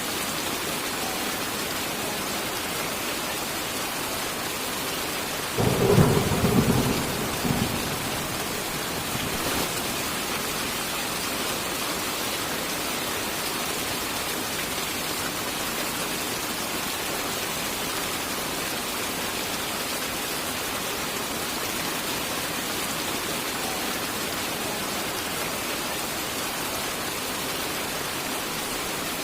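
Steady rain falling with an even hiss, and a thunderclap about six seconds in: a sudden loud crack that rolls on as a low rumble for about two seconds.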